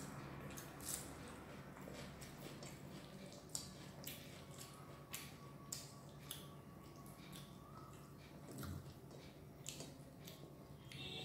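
Faint eating sounds: irregular soft, wet clicks and smacks of chewing, with fingers squishing rice and dal against a plate.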